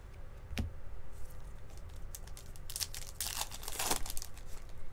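Crinkling and crackling of card-pack wrapping being handled, in a run of quick strokes that is densest about three to four seconds in, after a single click about half a second in.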